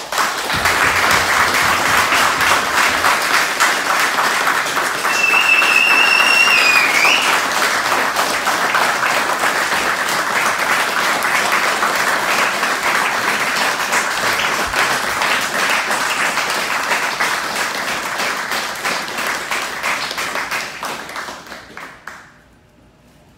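A small group clapping steadily for about twenty seconds, dying away near the end, with a high tone held for about two seconds partway through.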